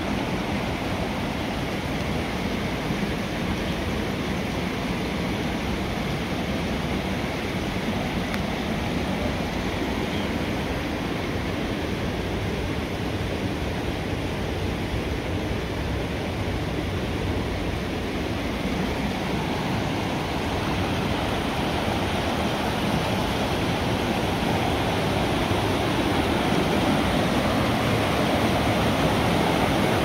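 Mountain brook rushing steadily over rocks and small cascades in a narrow rock gorge, growing a little louder over the last several seconds.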